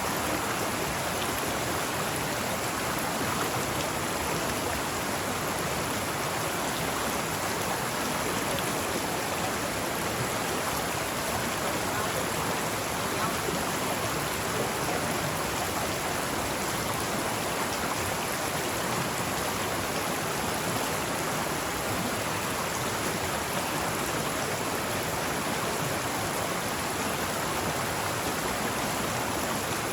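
Forest stream flowing, a steady, even rush of babbling water.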